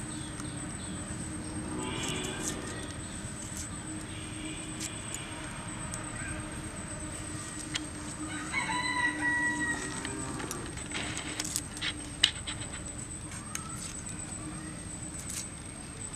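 A rooster crowing once, about eight and a half seconds in, for about a second and a half, with chickens clucking around it. Small sharp clicks and crackles come from dry garlic skins as cloves are peeled against a boti blade.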